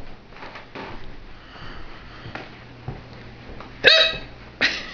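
A woman hiccuping: a sudden, loud voiced hic about four seconds in, and another just before the end.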